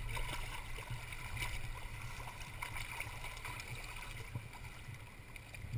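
Shallow water sloshing and swirling around wading legs and feet, with faint small splashes and a steady low rumble underneath.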